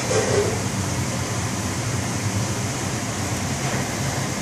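Steady hum and rush of commercial kitchen ventilation.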